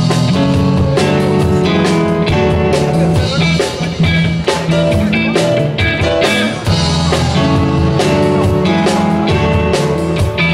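Live soul band playing an instrumental groove with a steady drum beat, bass and electric guitar, amplified through the stage PA, with no singing.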